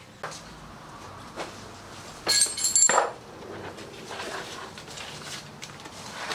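Metal hand tools and a plastic tap-and-die case being handled: a loud metallic clatter lasting under a second about two seconds in, then lighter clicks and rustles as the case is opened.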